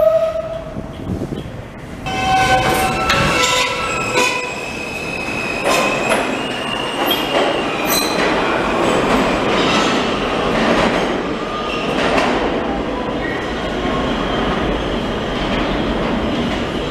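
New York City subway train running out of the station, with a steady rumble of wheels on rail and high-pitched wheel squeal coming and going.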